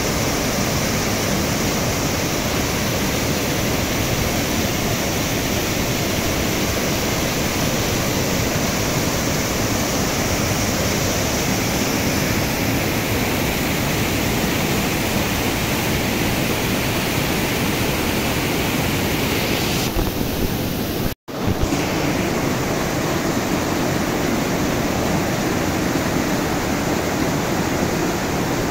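A mountain stream rushing and splashing down small cascades over boulders, a steady, loud noise of white water. About two-thirds of the way through the sound drops out for a moment and returns a little deeper in tone.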